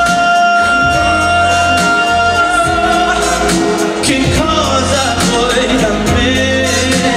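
Male singer performing live into a handheld microphone over a band accompaniment with a steady bass. He holds one long note for about the first two and a half seconds, then carries on with the melody.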